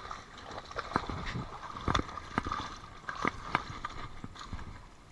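Scattered sharp knocks and clicks, irregularly spaced, over a steady water hiss, while a big fish is being fought and landed.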